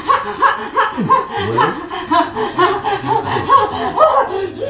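A person's rhythmic, laugh-like vocal huffs, repeated about three to four times a second in an unbroken pulse.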